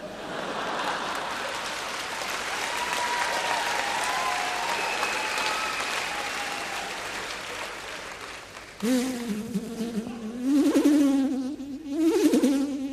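Studio audience applauding. In the last few seconds, a person's loud, wavering buzzing voice comes in fits, a performer imitating a fly.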